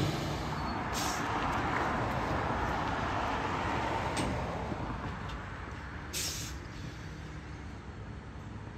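Automated side-loader garbage truck running at a distance while its Pac-Tech Bandit arm reaches out and grabs a trash cart, with a few short hisses, the strongest about six seconds in. The sound fades after about five seconds.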